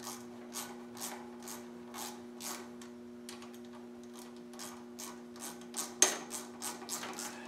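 Irregular light clicks and ticks, about two or three a second, with one sharper click about six seconds in, as hand controls are worked loose and taken off a mini bike's handlebar. A steady electrical hum runs underneath.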